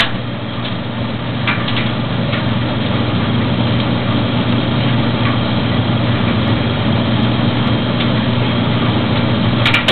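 Maytag DG608 gas dryer running with its gas burner lit: a steady hum from the drum motor and blower, with two sharp clicks near the end just before the machine cuts out.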